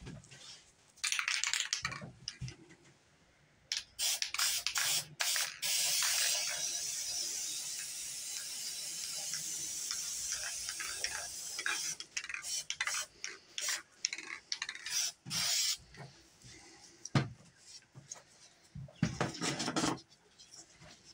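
Aerosol spray paint can hissing in bursts: a few short sprays, one long steady spray of about six seconds, then a quick run of short taps and a last short spray near the end.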